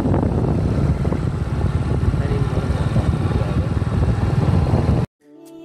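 Riding noise from a moving motorcycle: wind rushing over the microphone over the engine running. It cuts off suddenly about five seconds in, and background music starts.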